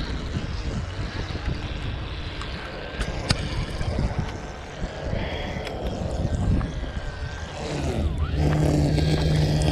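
Wind rumbling on the microphone with a couple of sharp clicks about three seconds in, then a steady engine hum from about eight seconds in.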